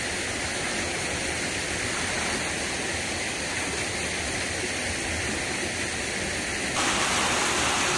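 Mountain stream water rushing over rocks, a steady rushing noise that gets louder near the end.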